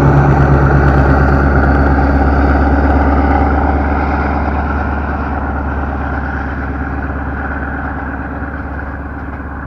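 A motor engine running steadily at idle, a constant low hum that slowly fades away.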